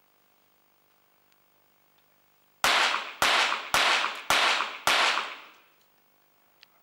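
Five .22 Short rapid-fire pistol shots, evenly spaced about half a second apart, each followed by a short echo: one five-shot rapid-fire series, one shot at each of five targets.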